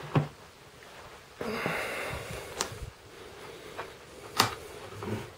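Handling of a radio-control transmitter: a few sharp clicks and taps, the loudest about four seconds in, with a breathy rush of noise lasting over a second partway through.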